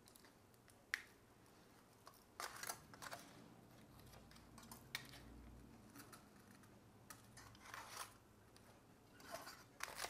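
Aluminium foil crinkling faintly in short, scattered bursts as it is peeled open with a fork, with a few light clicks.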